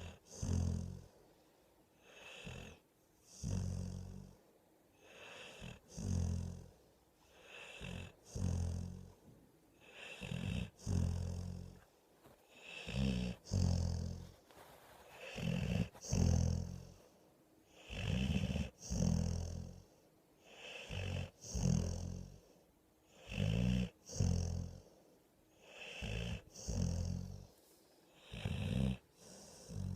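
Steady, rhythmic snoring: a low rasping snore about every two seconds, some breaths carrying a second snore close behind the first.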